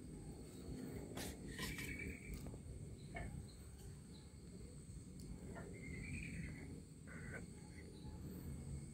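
Faint ambience of insects, crickets, trilling steadily at a high pitch, over a low rumble, with a few short sharp sounds and brief chirps now and then.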